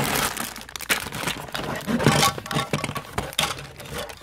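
Cardboard box and plastic packaging rustling, crinkling and scraping as hands pull Lego Duplo pieces out, with many small clicks and knocks throughout.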